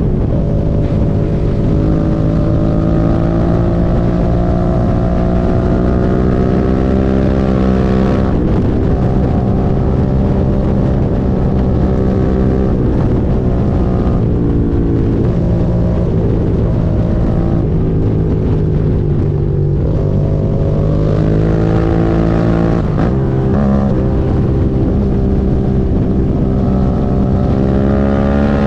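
Suzuki SV650's V-twin engine running under load on a moving motorcycle, with wind noise. The engine note climbs steadily for several seconds, then drops sharply about eight seconds in and again later, as the bike speeds up and changes gear or eases off.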